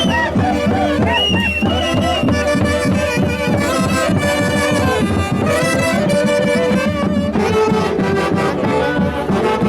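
Folk orchestra music with several wind instruments playing melody lines over a fast, steady beat.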